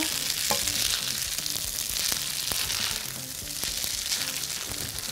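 Spaghetti sizzling in ghee in a frying pan as it is tossed with metal tongs, with a few light clicks, under soft background music.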